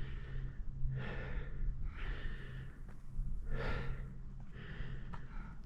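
A hiker breathing hard through the mouth, several heavy breaths in a row, from exertion on a steep climb at high altitude.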